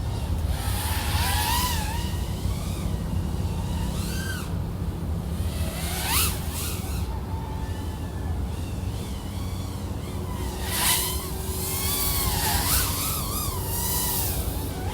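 Brushless motors and propellers of a 3.5-inch FPV quadcopter, the iFlight AOS 3.5 V5 with XING 1504 3100KV motors, in freestyle flight. The motor whine rises and falls with the throttle, with two sharp whooshing surges, about six and eleven seconds in.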